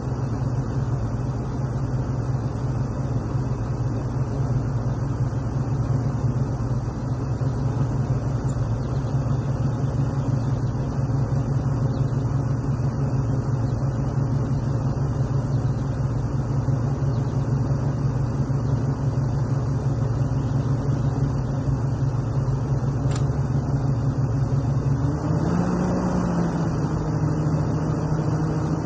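Bulldozer's diesel engine running steadily under work. Near the end the engine note rises a little and holds there.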